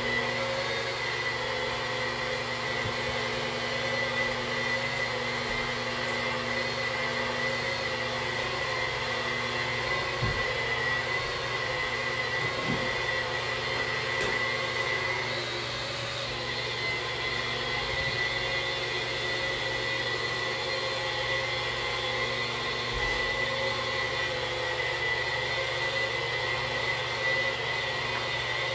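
Handheld electric polisher with a white 3M 4100 polishing pad running steadily against shower glass, a constant high whine over its hum, buffing off hard-water spots with polishing compound.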